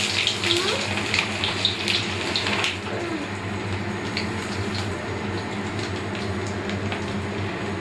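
Chicken balls deep-frying in hot oil: a steady sizzle with scattered crackles. It is loudest for the first three seconds, then settles a little quieter. A low steady hum runs underneath.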